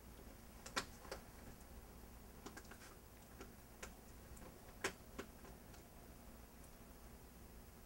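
Quiet room tone with a handful of faint, irregular clicks, two sharper ones about a second in and about five seconds in.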